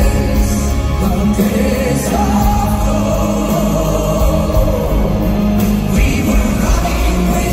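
Live concert music heard from the audience in an arena: a woman singing held notes at a microphone, with piano and backing singers.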